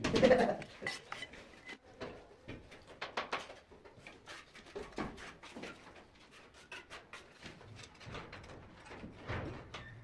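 Hands-on tiling work on ceramic tile: a run of irregular light taps, clicks and knocks from tools and tile pieces, loudest at the very start.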